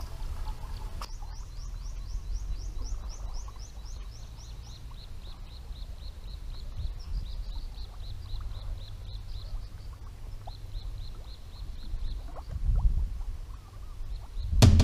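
A small animal calling with a long run of short, high chirps, about three a second, that stops about three-quarters of the way through. Wind rumbles low on the microphone throughout, and a few low thuds come near the end.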